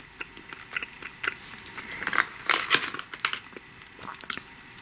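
A person chewing a shelled roasted chestnut close to the microphone: irregular wet mouth clicks and smacks, a little busier in the middle. The kernel is soft and moist, not hard.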